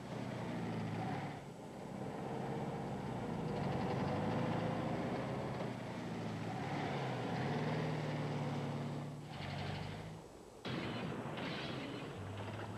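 Volkswagen Beetle's air-cooled flat-four engine running hard, its pitch rising slowly as the car is driven through water, with splashing spray. The sound drops and restarts abruptly a couple of times near the end.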